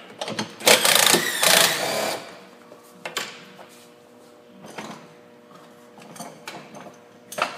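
Cordless drill-driver spinning for about a second and a half to run out the bolt holding the air intake snorkel, then a few light knocks as the part is handled.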